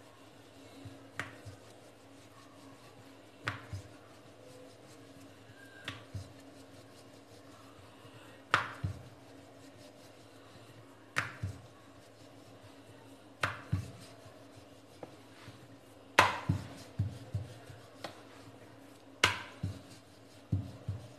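Wooden rolling pin rolling out paratha dough on a marble rolling board, knocking sharply against the stone every two to three seconds, over a faint steady hum.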